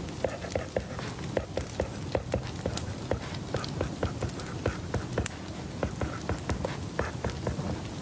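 Irregular light clicks and taps from someone working at a desk, several a second, over a steady background hiss.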